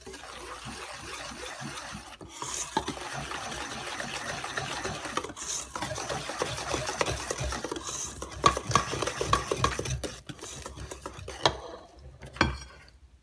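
Wire whisk beating chocolate muffin batter in a stainless steel bowl as flour is mixed in: a steady run of scraping and clicking of the wires against the metal. It grows louder about two seconds in and stops shortly before the end.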